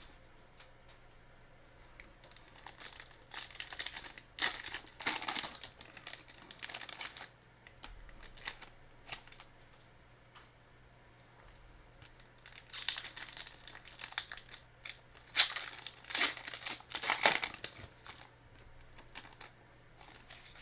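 Trading card pack wrappers being torn open and crinkled by hand, in two bouts of rustling separated by a quieter stretch.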